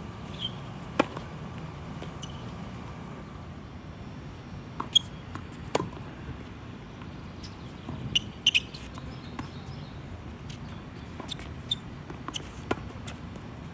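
Scattered sharp knocks of a tennis ball being struck and bouncing during play, at irregular intervals, over a steady low background rumble.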